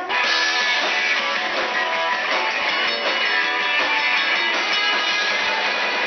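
Live band playing loud, with strummed electric guitars over bass and drums; the full band comes in just after the start.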